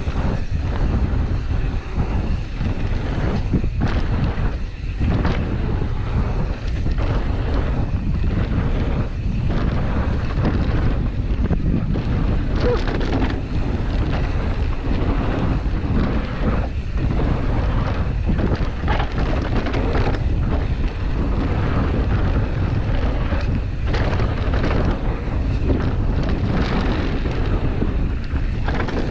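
Wind rushing over the microphone on a fast mountain-bike descent of a dirt trail, with a steady noise from the tyres. Frequent knocks and rattles come from the Pivot Switchblade bike as it goes over bumps.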